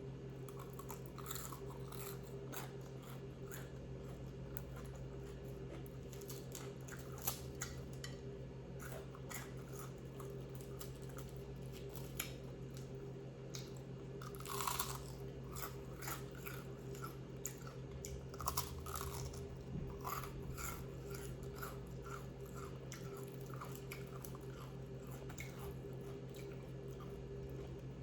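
Close-up chewing and crunching of crispy fried chicken, with scattered crackly bites and a louder crunch about halfway through, over a steady low hum.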